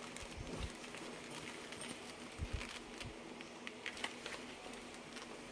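Faint, scattered clicks and handling noise from a plastic clamp meter as it is turned in a gloved hand and its jaw is opened and closed.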